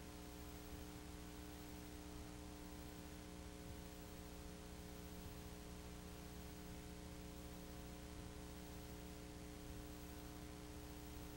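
Steady electrical hum with an even background hiss, unchanging throughout; the motorcycles on screen are not heard.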